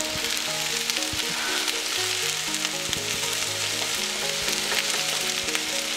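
Rice and a raw egg sizzling steadily in a hot skillet, with the scraping clicks of a wooden spatula scrambling the egg in the middle of the rice.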